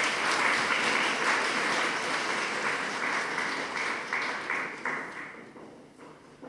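Audience applauding, a steady clatter of many hands that fades away over the last second or so.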